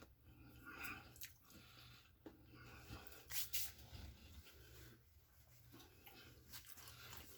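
Faint, scattered sounds of someone chewing and eating a fried peach mango pie, with a few soft short crunches around a second in and again about three and a half seconds in, otherwise close to silence.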